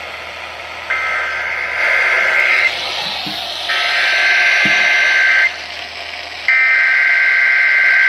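Emergency Alert System SAME data bursts played through a weather radio's speaker: three buzzy two-tone bursts of about two seconds each, about a second apart. This is the coded digital signal that marks an EAS alert.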